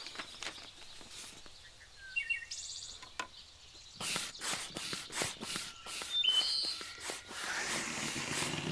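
Birds chirping over light handling rustles, then from about four seconds in a run of hissing air strokes from a hand pump inflating the air beams of a canvas air tent.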